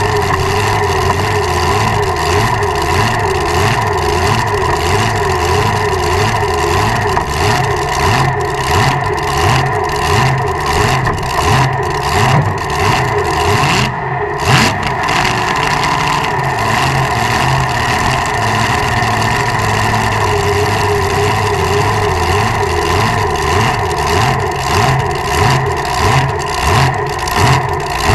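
Supercharged aluminum 540-cubic-inch Keith Black engine in a dragster running at a loud, steady idle during break-in. Over the last few seconds the sound swells and dips about once a second.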